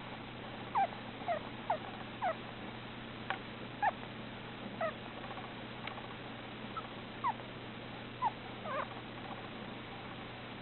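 Russian dwarf hamster squeaking softly in its sleep: about a dozen short, thin squeaks at irregular intervals.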